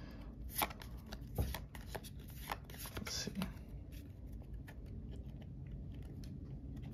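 Pokémon trading cards being handled and slid through the hands, with several short, soft card slaps and rustles in the first half, then quieter.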